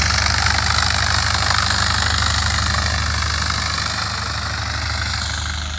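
Light aircraft's piston engine running at a steady speed, growing slightly quieter towards the end.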